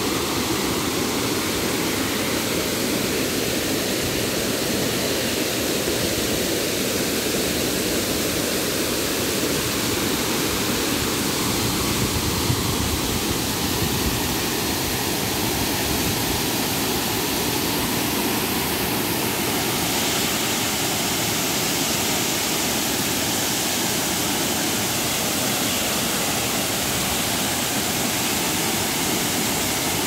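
A tall waterfall's plunging water, a steady, even rushing roar.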